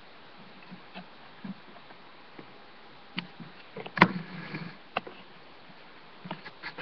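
Handling noise around a wooden doll's house: a few light clicks and knocks over low hiss, the sharpest knock about four seconds in and another a second later.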